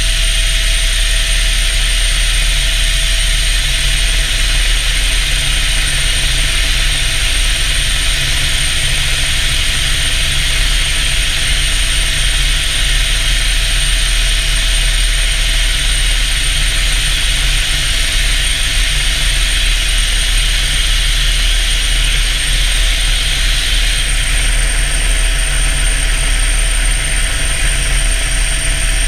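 Helicopter in flight heard from inside the cabin with the door open: steady turbine whine and rotor rumble under an even rush of noise that eases slightly near the end.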